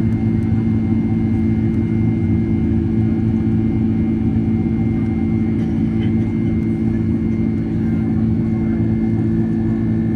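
Steady in-flight cabin drone of a Boeing 767-300ER airliner: engine hum and rushing airflow, an even rumble with a few constant low tones.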